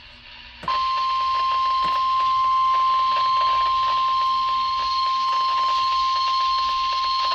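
NOAA Weather Radio warning alarm tone: one steady, high, unwavering beep that switches on suddenly under a second in and holds, over a background of radio hiss. The tone signals that a warning message is about to be broadcast.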